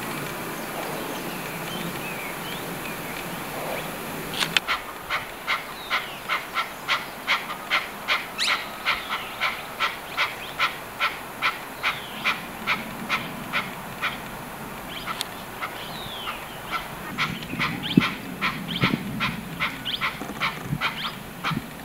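Chukar partridge calling: a rapid, evenly paced run of sharp 'chuck' notes, about three a second, begins a few seconds in and lasts about ten seconds. Looser, irregular calls follow toward the end.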